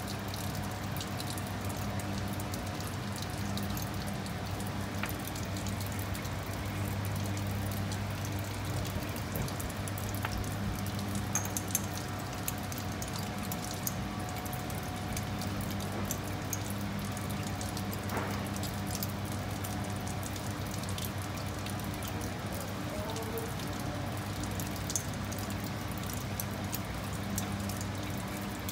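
Liquid being poured into a Büchner funnel and drawn through by suction during vacuum filtration, pouring and dripping, with a steady low hum underneath.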